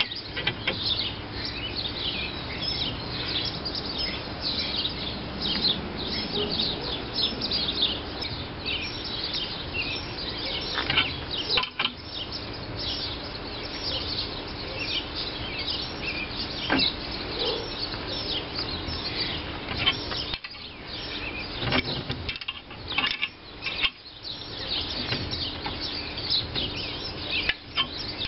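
Wild songbirds chirping and singing steadily, with a few sharp metallic clinks and taps from hand tools being worked on a gear puller and cast-iron flywheel, mostly in the second half.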